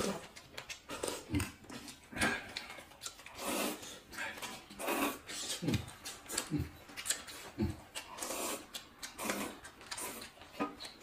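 Close-miked eating sounds: slurping up hot-and-sour glass noodles and chewing, in irregular wet bursts about once a second.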